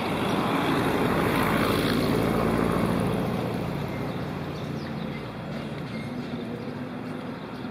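A motor passing by: steady engine noise that swells over the first three seconds or so, then fades to a lower, steady hum.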